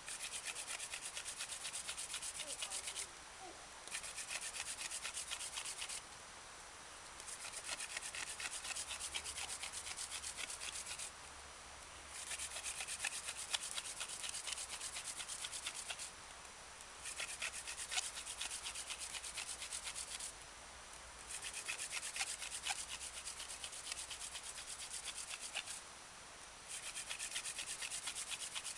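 Hand-drill friction fire: a wooden spindle spun back and forth between the palms and rubbing in the fireboard, in seven runs of about two to four seconds with short breaks of about a second between them. Easy, light pressure to build up wood dust before going for a coal.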